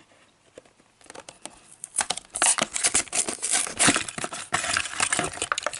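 Plastic blister packaging of 1:64 diecast cars crackling and crinkling as it is handled and pulled open, in dense irregular crackles that start about a second in.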